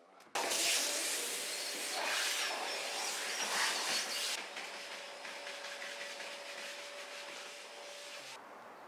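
A vacuum cleaner running: a steady rush of air with a faint whine that starts suddenly just after the start, gets quieter from about four seconds in, and whose whine stops near the end.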